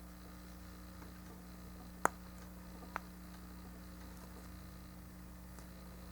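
Two short plastic clicks about a second apart, about two seconds in, as snap-fit model kit parts are handled and pressed together, over a steady low electrical hum.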